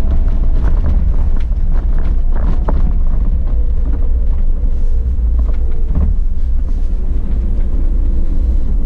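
An off-road 4x4 driving over a rutted dirt track, heard from inside the cab: a steady low engine and drivetrain rumble with frequent short knocks and rattles as it goes over the bumps.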